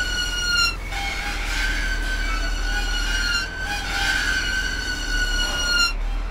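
Music for brake drum percussion and electronics: long metallic ringing tones with several overtones that slide slowly down in pitch. The sound cuts off abruptly just under a second in, starts again, and cuts off again near the end, over a low steady hum.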